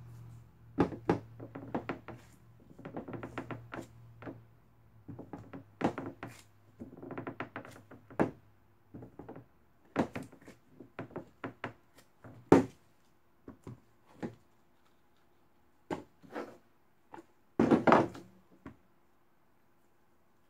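A loaf of cold-process soap pushed in short strokes across an acrylic soap planer's blade, shaving the rough top smooth: groups of short scraping strokes and knocks of the soap against the acrylic, with pauses between. One sharp knock comes about midway, and a dense group near the end.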